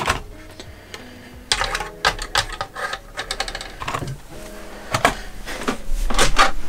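Hard plastic 1/10-scale RC truck body shells clicking, rattling and knocking against the chassis and a wooden workbench as they are handled and set in place, in several quick clusters of clicks.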